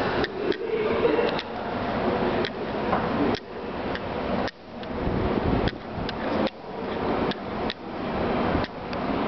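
JR Kyushu 813 series electric train rolling slowly past, its wheels clacking over rail joints in knocks that come singly or in pairs about every second, over a steady running noise.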